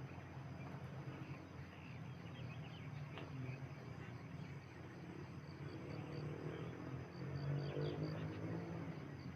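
Morning forest ambience: scattered bird chirps over a steady low hum, with a high, evenly pulsing chirp at about four a second in the second half.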